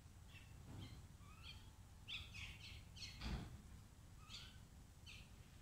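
Short, scattered calls from a feeding flock of common mynas and house crows, several in quick succession around two to three seconds in, over a faint low rumble, with a low thump just after three seconds in.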